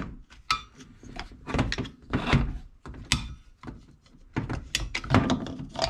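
Flat screwdriver prying at the retaining clips of a Buick Nailhead 401 distributor cap, with the cap and distributor body knocking as the cap is worked loose: a run of irregular clicks and knocks.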